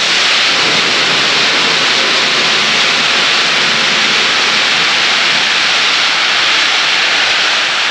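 Snail bait pellets pouring from a bulk bag into a steel spreader hopper: a steady, loud hiss.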